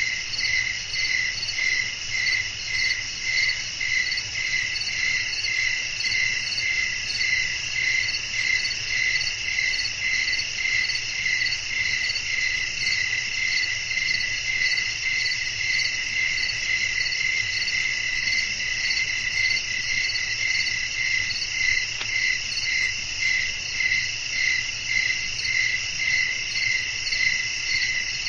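Crickets chirping in a night chorus: a steady high trill with a louder chirp pulsing a little more than once a second over it.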